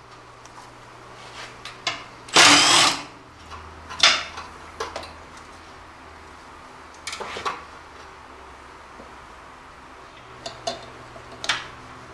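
A cordless power tool running in short bursts to undo a fastener on a truck frame: the longest burst, under a second, comes about two and a half seconds in, a shorter one follows a second and a half later, then a few light clicks of metal and tool handling.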